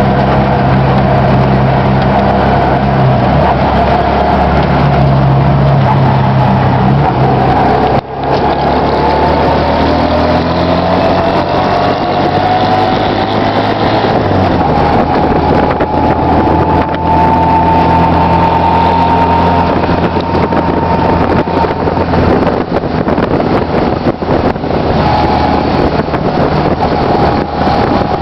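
Mototaxi's small engine running under way in traffic, heard from inside the cab. A whine rises slowly in pitch through the middle as it picks up speed, and there is a brief dip about eight seconds in.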